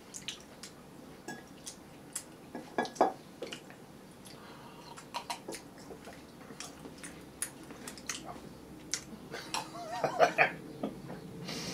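Scattered light clicks and clinks of a fork and a glass against a ceramic bowl and tabletop, the sharpest about three seconds in, with small mouth sounds of chewing and drinking from a glass of water near the end.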